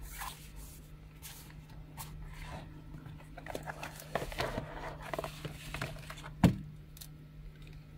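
Cardboard and paper packaging being handled: a white card sleeve slid open and cables pulled out of it, with rustling and small clicks and one sharp knock about six and a half seconds in. A steady low hum runs underneath.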